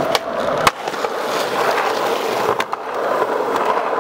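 Skateboard wheels rolling on concrete with a steady grind. The board lands with a sharp clack less than a second in, and there are a couple of lighter clicks about two and a half seconds in.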